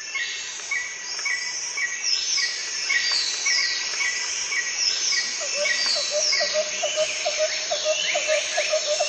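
Birds calling, with a short chirp repeated about twice a second and high falling whistles, over a steady high insect hiss. About halfway through, a lower note starts repeating about three times a second.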